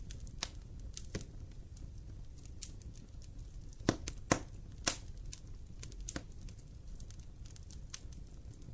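Wood fire crackling in a fireplace: scattered sharp pops and snaps over a low steady rumble of the flames, with the loudest cracks in a cluster about four to five seconds in.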